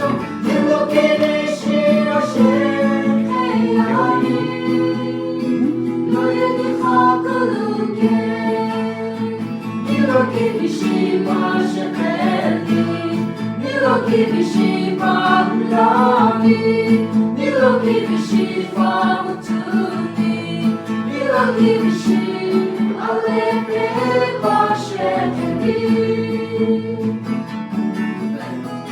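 A choir singing a gospel song with plucked guitar accompaniment.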